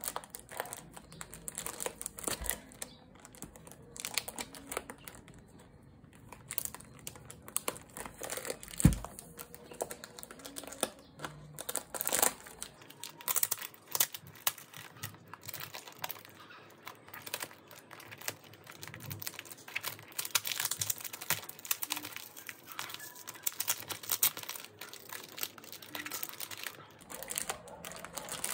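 Clear plastic packaging crinkling and crackling irregularly as hands peel and pull it off a new A5 ring binder, with a single knock about a third of the way through.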